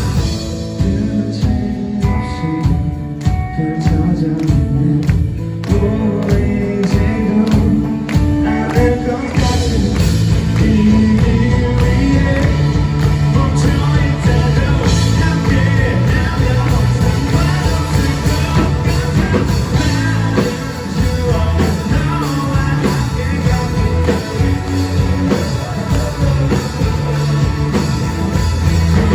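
Live rock band playing with a sung vocal over drums, bass and guitar, the drums keeping a steady beat; heard loud through a venue recording.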